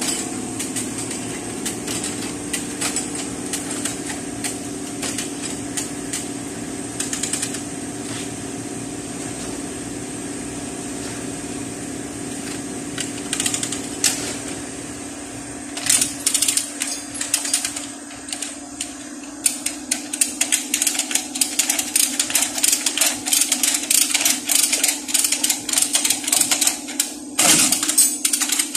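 Lever chain hoist (come-along) ratcheting in rapid clicks as its handle is pumped, tensioning chains that pull a damaged car body back into shape; the clicking starts in earnest a little past halfway. Before that, a steady low machine hum.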